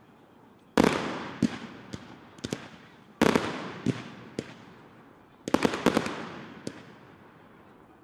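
Professional aerial fireworks going off: three heavy bangs, each followed by a long fading rumble, with sharp single cracks between them.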